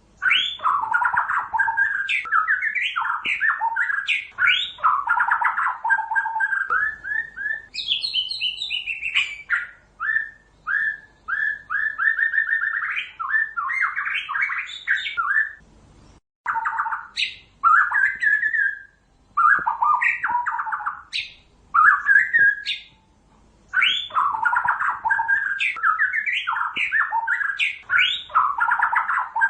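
White-rumped shama singing: long phrases of rapid, varied whistled and chattering notes, broken by a few brief pauses.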